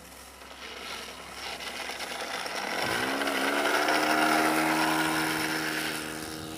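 HP VT21 four-stroke model aircraft engine with a rotary valve in the head, running as the plane rolls past on the runway after touching down. It grows louder, with a steady engine note coming in about three seconds in, peaks about four seconds in, then fades as the plane moves away.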